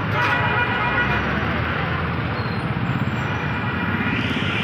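Dense road traffic noise from a jam of buses, microbuses and motorcycles running and creeping along. A vehicle horn sounds briefly at the start.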